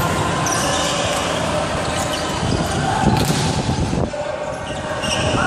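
Volleyball rally in a large echoing sports hall: players moving and calling on the court, with one sharp hit of the ball about three seconds in.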